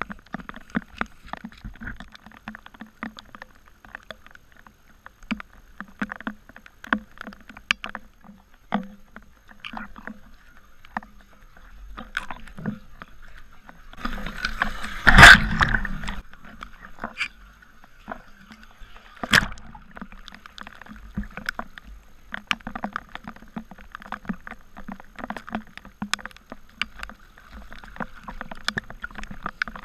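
Muddy runoff water sloshing and lapping against a camera sitting at the waterline, with many small irregular splashes and ticks and one loud splash about fifteen seconds in.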